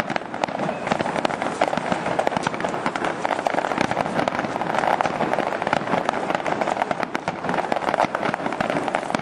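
Aerial firework shells bursting in a dense barrage, bangs and crackles following each other with no let-up.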